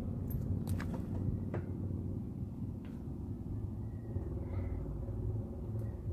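A steady low rumble, with a few light clicks in the first two seconds.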